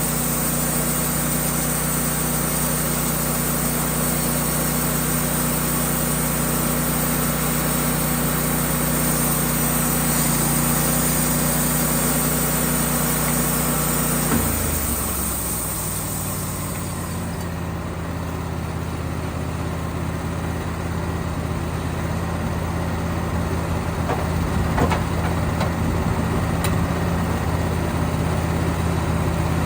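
Portable band sawmill's engine running under load with the blade cutting through a poplar log. About halfway the engine note drops and the cutting hiss fades, leaving the engine running steadily at a lower speed as the cut finishes.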